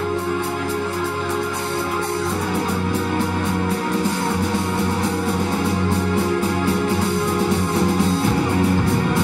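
Live rock band playing: held keyboard chords, then from about two seconds in electric guitar, bass and drums come in with a fast, steady rhythm.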